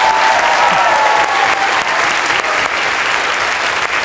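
Audience applause: a large crowd clapping together, steady and dense throughout.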